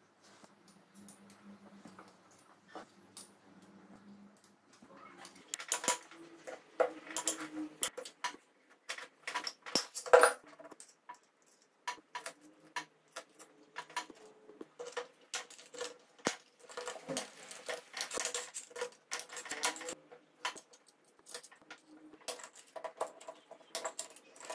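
Metal hand tools clinking, tapping and scraping against the metal parts of a Honda CBR250 (MC22) engine's open cylinder head. The sharp, irregular clinks start about five seconds in and keep coming, the loudest one around ten seconds in.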